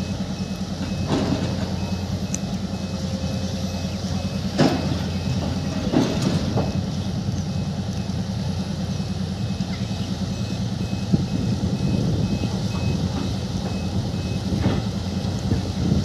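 Tata Hitachi EX210LC excavator's diesel engine running steadily as the machine works, with a few sharp clanks about one, four and a half and six seconds in. A high-pitched alarm beeps about twice a second through much of it.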